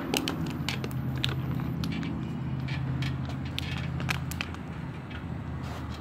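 Small bicycle ridden across a concrete floor: irregular sharp clicks and rattles over a steady low hum.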